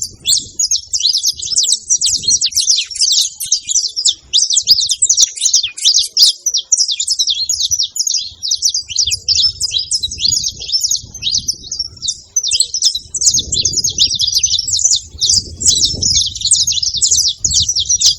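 Saffron finch chirping and singing nonstop, a dense run of quick, high, downward-sliding notes.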